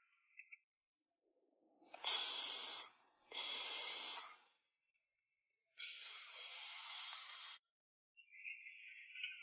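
Three separate bursts of steady hissing, the last one the longest, with silence between them.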